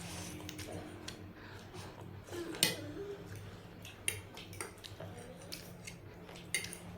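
Eating utensils clicking against a bowl of instant noodles while eating: a few scattered sharp clicks, the loudest about two and a half seconds in, over a faint steady hum.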